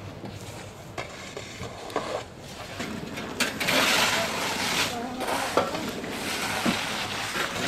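A shovel scraping loose volcanic ash across clay roof tiles in repeated gritty strokes, the loudest beginning about three and a half seconds in.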